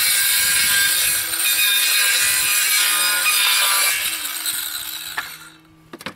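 Circular saw cutting through a sheet of OSB: a loud, steady cut for about four seconds, then the sound dies away as the cut ends and the blade spins down. A short knock follows near the end.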